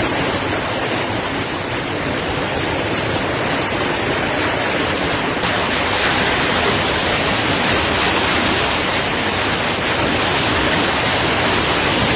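Heavy storm: torrential rain mixed with hail, driven by strong wind, a dense steady rush that gets louder and hissier about five and a half seconds in.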